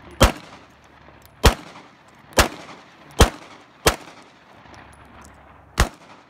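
Six single gunshots from a firearm, fired one at a time about a second apart with a longer pause before the last, each trailing off in an echo.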